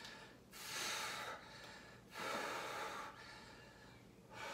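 A man breathing hard from exertion during resistance-band bicep curls: three long, noisy breaths, each about a second long and roughly two seconds apart.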